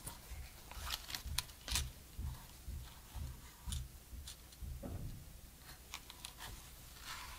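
Soft handling noise from cotton-gloved hands turning a Sony A6400 mirrorless camera over: irregular small clicks, taps and rustles of glove fabric on the camera body, the loudest about a second and a half in.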